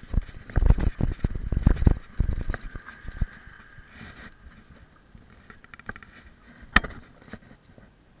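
Mountain bike rolling over a rough, potholed dirt road, rattling and knocking over the bumps. Heavy knocks come in the first two seconds or so, then lighter scattered clicks, with one sharp click about seven seconds in.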